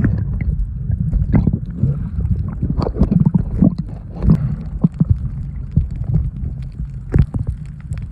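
Water noise: a dense low rumble with irregular knocks and gurgling throughout.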